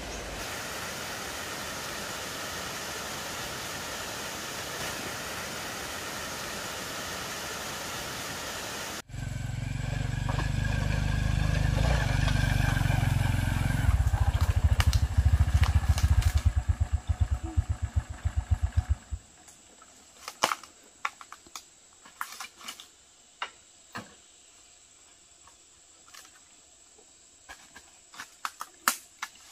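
A steady rushing noise, then after a sudden cut a small motorbike engine running close by, loud and low; about ten seconds later its firing slows into separate pulses and stops. Scattered sharp clicks follow in the quiet.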